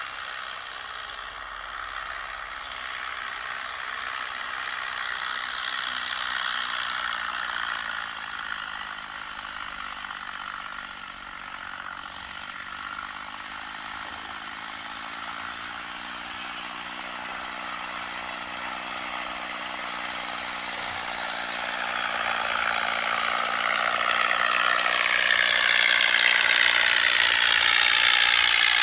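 New Holland 3630 4x4 tractor's diesel engine working under load as it pulls a 22-disc harrow through the soil, with the harrow's discs and frame rattling. The engine pitch dips and rises again partway through, and the sound grows steadily louder over the last several seconds as the tractor comes close.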